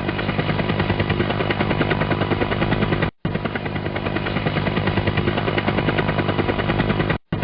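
Helicopter rotor blades chopping in a fast, even beat of about five a second over a steady engine drone. The sound drops out to silence for a split second about three seconds in and again near the end.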